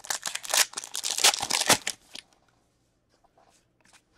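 Foil wrapper of a hockey card pack being torn open, a dense crackling rip lasting about two seconds.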